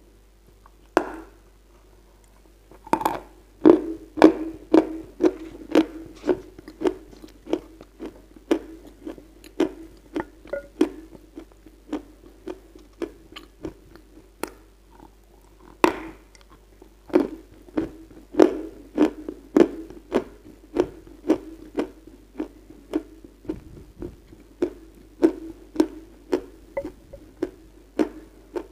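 Chewing and crunching a chunk of 'Red Heart' Kyrgyz edible clay: sharp wet crunches about two a second, strongest a few seconds in and again around the middle.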